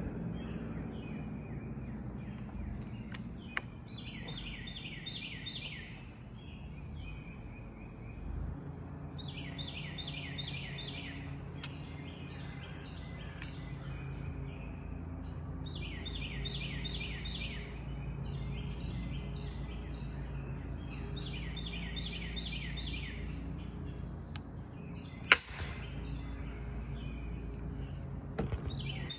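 Woodland birdsong: one bird repeats a short phrase of quick, rapid notes every five or six seconds over a run of faint, evenly spaced higher chirps, with a low steady hum beneath. A single sharp click about 25 seconds in is the loudest sound.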